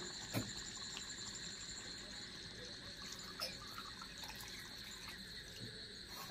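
Hot water poured from a pot into chicken curry in an iron kadai: faint pouring, with a couple of light clicks.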